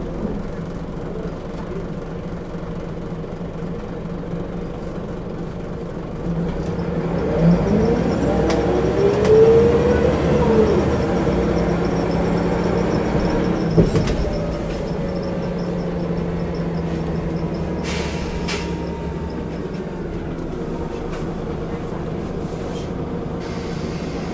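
Single-deck diesel bus heard from inside the saloon, its engine running with a steady drone. A few seconds in it gets louder and its note climbs, peaks and drops back as the bus accelerates, with a sharp knock near the middle and a brief hiss of air a little later.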